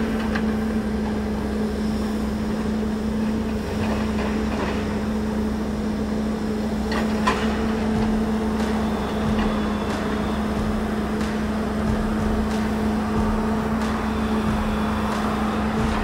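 Diesel engine of a heavy logging machine running steadily, a constant drone with a faint knock about seven seconds in.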